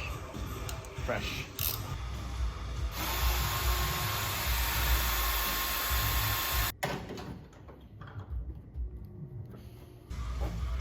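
Power drill running steadily for about four seconds, then cutting off suddenly, while holes are drilled in the top radiator support for rivnuts; lighter workshop knocks before and after.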